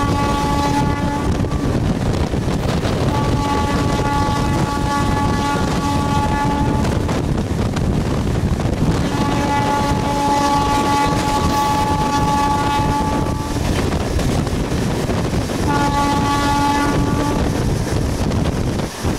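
A MEMU train's horn sounds in repeated long blasts at one steady pitch. One blast is already sounding and stops about two seconds in, then three more follow, the last one shorter. All of it rides over the steady running rumble of the train at speed.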